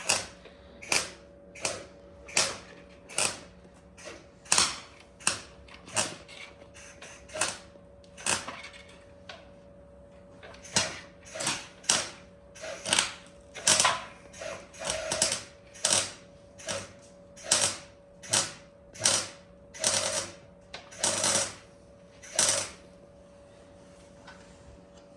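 MIG welder stitch-welding a steel repair panel in short crackling bursts, roughly one a second, some longer and some in quick pairs, stopping shortly before the end; a faint steady hum runs underneath.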